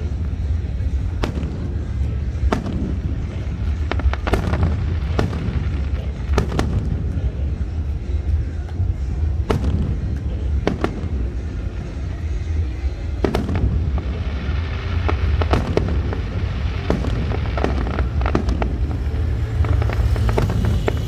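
A fireworks display: shells bursting one after another, sharp bangs roughly one or two a second over a constant low rumble.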